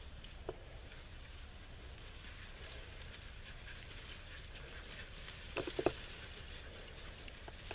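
Beagles giving tongue on a rabbit trail: a quick cluster of three short barks a little past the middle, with a faint single one about half a second in.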